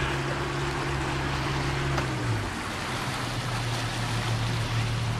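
A boat's engine running with a steady low hum, its pitch dropping a little just over two seconds in, over a constant rushing hiss of water along the hull.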